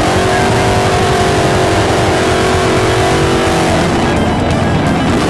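Second-generation Chevrolet Camaro's engine held steady at high revs, then its note breaks up as the rear tyres spin in a burnout about four seconds in.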